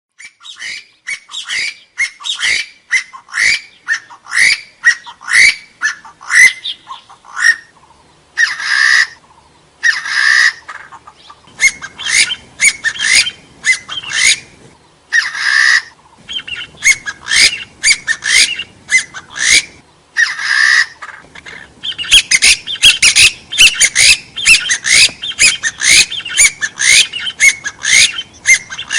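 Hill partridge (gà so) calling: runs of short, quick rising whistled notes, about three a second. Several longer, harsher calls break in, and the notes crowd densely together in the last part.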